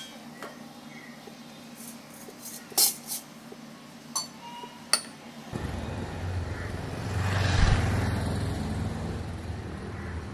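Several sharp clinks of tableware over a low steady hum. About halfway in, the rumble of a passing road vehicle rises to a peak and then slowly fades.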